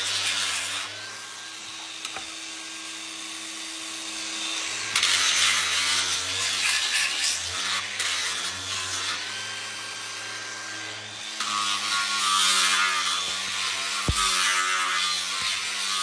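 A handheld power tool running and grinding down hoof horn, its motor note shifting and the abrasive hiss swelling and easing in surges.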